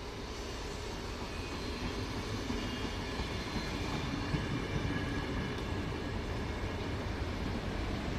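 VR Sm2 electric commuter train passing close by, its wheels rumbling on the rails and growing louder as the cars come alongside, with a faint high whine in the middle.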